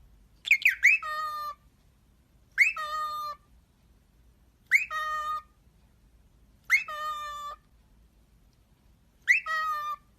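A parrot calling five times, about every two seconds. Each call is a sharp whistled chirp followed by a held tone of about half a second; the first call opens with several quick whistles.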